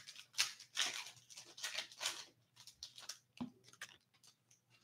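Foil hockey card pack wrapper being torn open and crinkled by hand: a run of crackling tears for about two seconds, then a few light clicks and rustles as the cards are handled.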